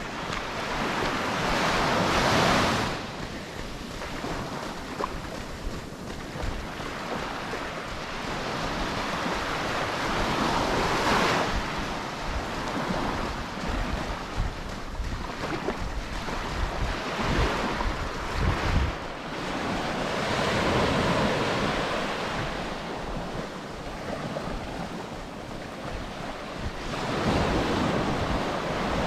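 Ocean waves breaking and washing up a sandy beach, the surf swelling and falling back about four times, with wind rumbling on the microphone.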